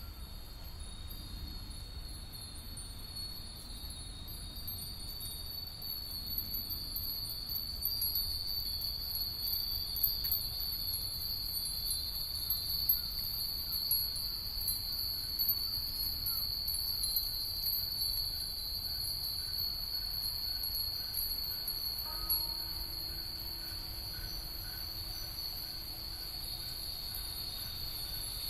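Hundreds of Japanese wind bells (fūrin) ringing together in the breeze: a dense, continuous tinkling of high bell tones that swells a little louder after several seconds.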